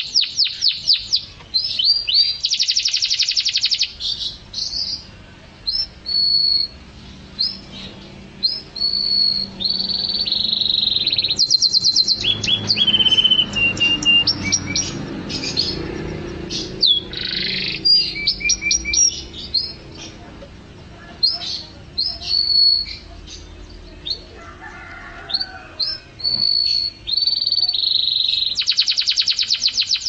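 Domestic canary singing a long, varied song: bursts of very fast trills, short whistled notes, and a run of notes stepping down in pitch about halfway through.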